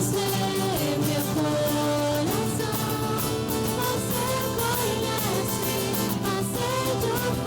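Worship song: a sung melody over instrumental accompaniment.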